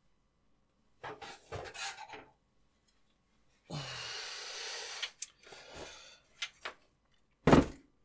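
A heavy metal DEC 3000 workstation chassis being tipped over by hand on a wooden workbench: scraping and rubbing in bursts, a few clicks, then one loud, deep thump near the end as it comes down on the bench.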